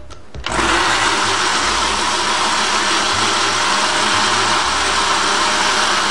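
Countertop electric blender switched on about half a second in and running steadily, whirring a liquid mix of lime jelly, condensed milk and water.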